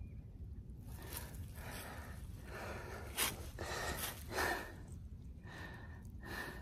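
A person breathing hard in quick, repeated breaths, out of breath from spinning a hand drill for a friction fire.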